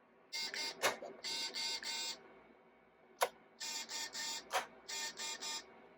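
Edison Voicewriter dictation machine making short mechanical buzzing bursts, mostly in runs of three, with a sharp click between each run.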